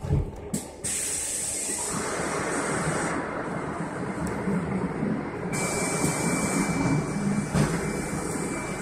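Cabin noise inside an electric bus, with a knock right at the start and an air hiss that switches on suddenly about a second in and again a little past the middle, a thin steady tone running under the second hiss.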